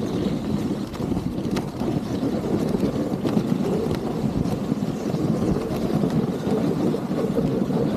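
Dog sled moving along a snowy trail: a steady rushing of the runners over the snow mixed with wind on the microphone, with a few light clicks.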